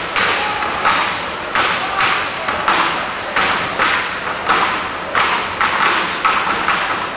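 Step team stomping on a stage and striking their bodies and hands in unison, a sharp beat of thuds and slaps about twice a second.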